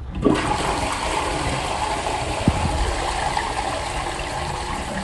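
Wall-hung toilet flushing from its concealed in-wall tank: a rush of water into the bowl that starts suddenly and holds steady, with a brief knock about two and a half seconds in.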